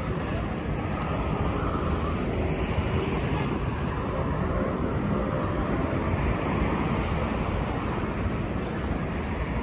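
Busy city-street ambience: a steady rumble of road traffic with indistinct voices of passers-by mixed in.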